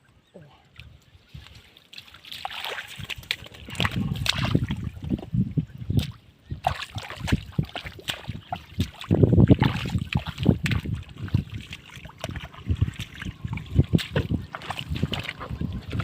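Hands splashing and sloshing through shallow muddy water while groping for and catching fish, an irregular run of splashes with the loudest burst about nine seconds in.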